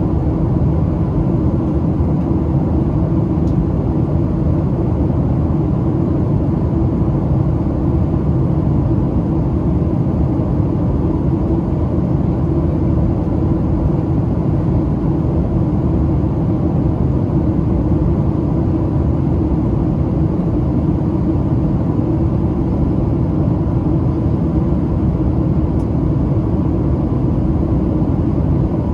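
Steady cabin noise inside a Boeing 737-700 airliner in flight on approach: a constant low rush of airflow and engine hum with no changes.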